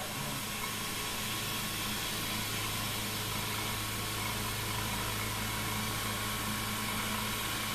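Bed mill spindle running with a 3/8-inch end mill taking the finish cut around a circular pocket in aluminum: a steady whir and hiss with a low hum and a faint high tone, unchanging throughout.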